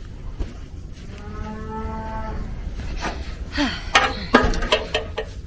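A cow moos, one drawn-out steady call about a second in. Then water spits and sputters irregularly from a spigot as air still in the line works its way out.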